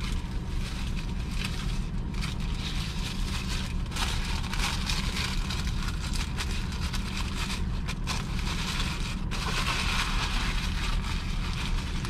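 Burrito wrapper crinkling and rustling in handling as it is unwrapped, in irregular spells, over the steady low hum of the truck's engine running.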